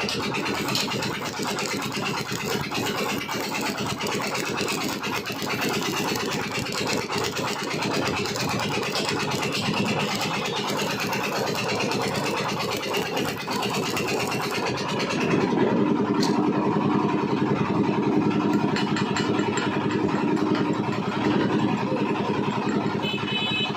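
An engine running steadily; about two-thirds of the way through it gets louder, with a steady low hum coming in.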